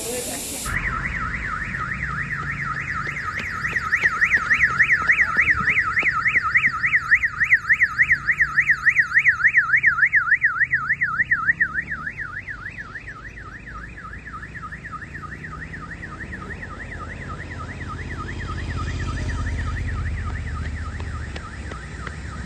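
An electronic siren warbling rapidly up and down, about four or five sweeps a second, loud for several seconds and then fading away. A low rumble swells near the end.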